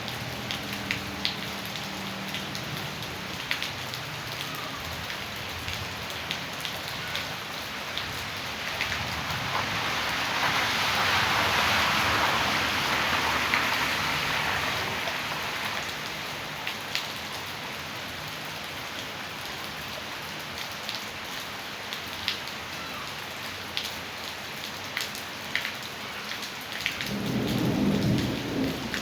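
Heavy rain falling, with scattered drops tapping close by. It swells louder for several seconds about ten seconds in, and a low rumble comes in near the end.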